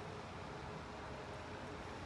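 Quiet, steady background hiss with no distinct events: the open-air room tone between two spoken passages.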